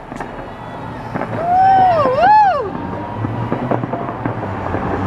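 Distant fireworks popping and rumbling. About a second and a half in, a person gives a long wavering "woo-hoo" whoop that rises, dips and rises again.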